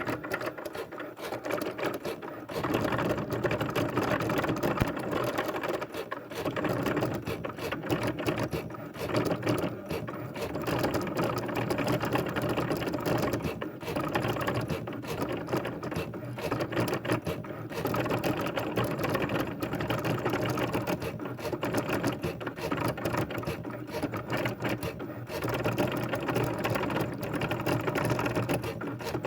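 A continuous, rapid mechanical clatter that swells and dips in loudness every few seconds.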